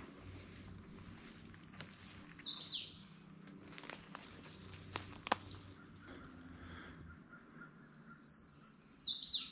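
A songbird singing two phrases, each a quick run of high chirping notes that climb and then end in a downward sweep: one about two seconds in, the other near the end. A few faint clicks fall between them.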